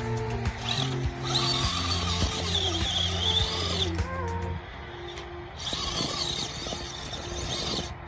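RC rock crawler's electric motor and gear drivetrain whining, rising and falling with the throttle as it crawls up over rocks and snow, with background music underneath.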